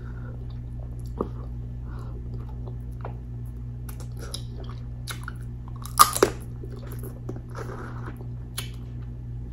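Close-up chewing and wet mouth smacks of a person eating a sauce-drenched seafood boil, with a few sharper smacks about six seconds in. A steady low hum runs underneath.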